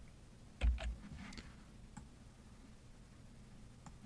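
Computer mouse clicks: a few short clicks, the loudest about half a second in with a low thump under it, then single fainter clicks around two seconds in and near the end.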